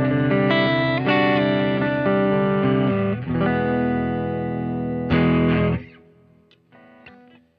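Baum Backwing electric guitar played through an amplifier, moving between single notes and chords. A chord rings out near the middle and is cut off about six seconds in, leaving only faint string and hand noise at the end.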